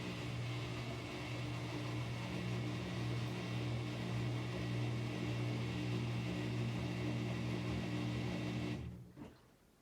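Whirlpool top-loading washing machine's motor running with a steady hum during its drain and spin cycle, then shutting off and dying away about nine seconds in.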